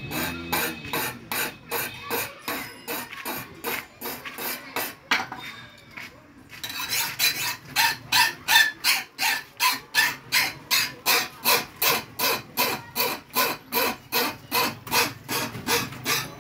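A hand file rasping along the edge of a forged knife blade in quick, even strokes, about three a second. After a short break about six seconds in, the strokes come back louder and a little faster.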